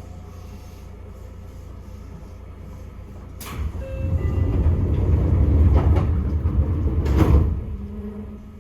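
Train rumble under a steady low hum: a sharp knock about a third of the way in sets off a low rumble that swells for about four seconds, with a second sharp knock near its loudest point, then dies away.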